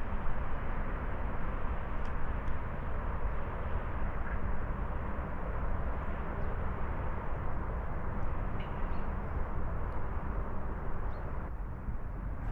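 Wind on the microphone on an exposed hilltop: a steady rushing noise with a heavy low rumble that swells and eases slightly.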